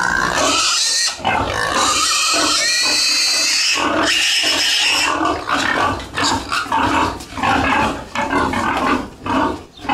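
Young pig screaming in distress, its head stuck between the bars of a metal pen gate while it is pulled free. The squeal is loud and unbroken for about the first half, then comes in shorter, broken squeals.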